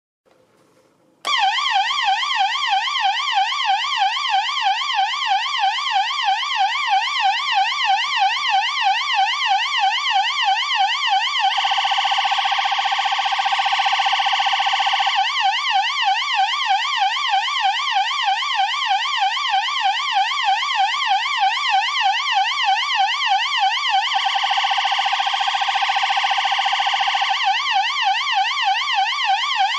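Stylophone imitating a police siren: after about a second of quiet, a reedy electronic tone starts and sweeps quickly up and down in pitch. Twice it switches for a few seconds to a faster trill before going back to the wail.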